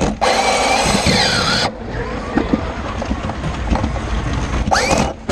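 FRC competition robot heard from its own onboard camera while driving: drivetrain and mechanism motors rumbling, with knocks. A loud burst of noise with squealing glides lasts about a second and a half near the start, and a shorter one comes near the end.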